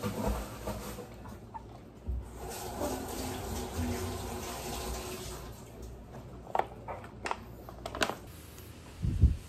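Kitchen tap running into a sink for a few seconds, followed by a few sharp clicks and knocks. A loud low thump comes near the end.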